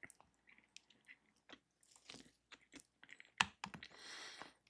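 Quiet, scattered clicks and crackles close to the microphone, with one sharper tap about three and a half seconds in and a short rustle just after it.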